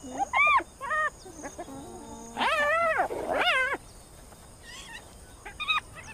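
Spotted hyena cub squealing and whining: a series of short high-pitched calls, each rising then falling, the two longest in the middle.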